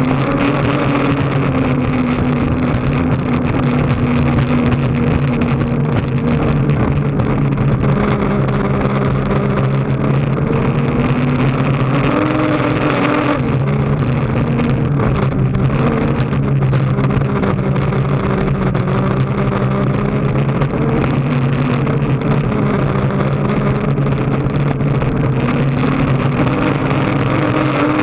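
Unlimited hydroplane's turbine engine running at racing speed, heard from inside the closed cockpit: a loud, steady drone that drifts up and down a little in pitch, over the rush of wind and water.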